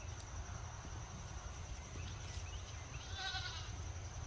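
A Nigerian dwarf goat bleats once, a short wavering call about three seconds in, under a faint steady insect trill.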